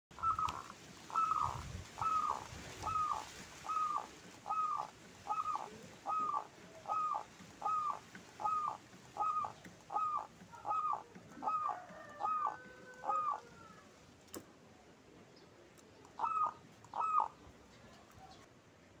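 Zebra dove (perkutut) cooing: a long run of about sixteen short, evenly spaced notes, each dipping slightly in pitch, a little under one a second. After a sharp click and a pause, two more notes come near the end.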